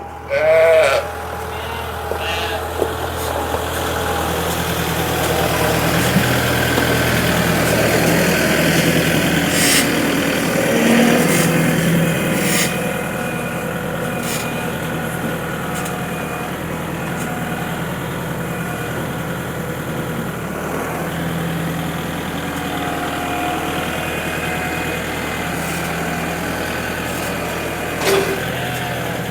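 Tractor engine running steadily at idle, with a brief louder sound about a second in.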